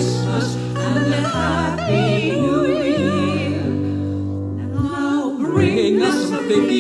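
One woman's voice, layered in several parts, singing in close harmony. The top line has a wide operatic vibrato over held low notes.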